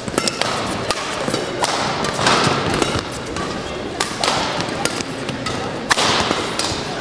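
Badminton rally: a shuttlecock struck back and forth by rackets, sharp cracks about every two seconds, over players' footfalls thudding on the court.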